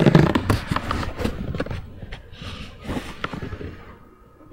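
A rapid run of knocks, clicks and scrapes, loudest in the first second and fading near the end: handling noise from the webcam being shifted along the wooden floor.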